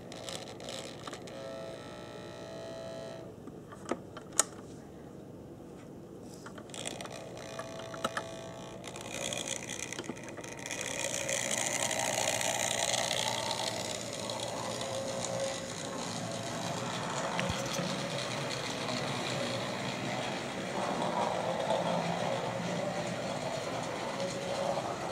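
Bowser 4-8-2 HO-scale model steam locomotive running on the track, its motor and gears whirring. The whir is faint for the first ten seconds, with a couple of sharp clicks about four seconds in, then turns louder and steady about ten seconds in.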